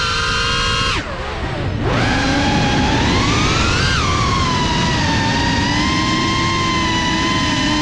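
Geprc Cinelog 35 cinewhoop's motors and propellers whining. The pitch drops sharply about a second in as the throttle comes off, with a rush of air, then climbs back to a peak near four seconds in and settles into a steady whine.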